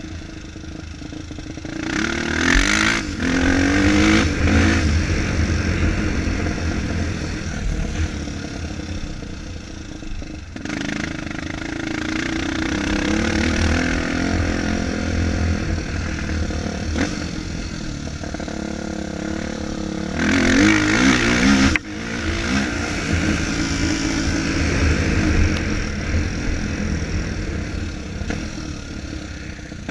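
Four-stroke single-cylinder dirt bike engine revving up and down as the bike is ridden around a motocross track, the pitch rising and falling with each burst of throttle. It is loudest twice, a few seconds in and again about twenty seconds in, as the bike comes close.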